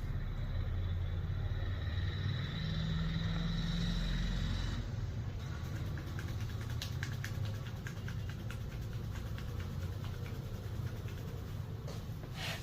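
Hands working during a barber's massage: a hissing rub at first, then from about five seconds in a long run of quick, light, irregular taps and clicks, with a couple of louder slaps near the end, all over a low steady rumble.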